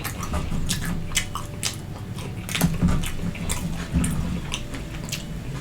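Close-miked chewing of a hot dog topped with Flamin' Hot chips: irregular crunches and wet mouth sounds of eating.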